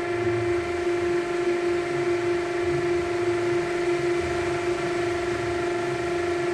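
Cylinder head machining spindle turning a multi-step cutter as it cuts the valve spring seat and teflon seal boss on a cast-iron Holden 308 head: a steady whine over a low rumble. The cut is fed in gently because the cutter works four or five diameters at once.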